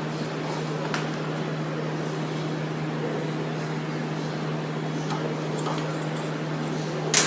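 Steady machine hum with an even fan-like rush, a faint click about a second in and a sharp metallic knock at the very end.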